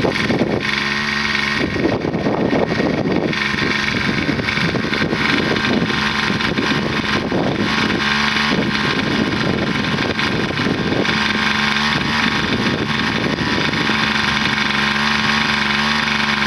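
Small engine of a portable water pump running steadily at a constant pitch, with water from its hose splashing into a plastic bucket as it fills.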